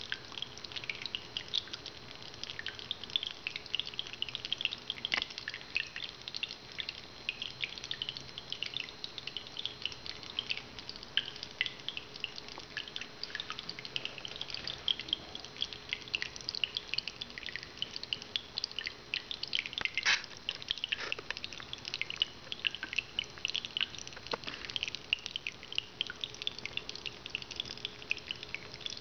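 Small decorative sphere fountain running: water trickles and drips continuously in a dense patter of droplets, over the faint steady hum of its small water pump.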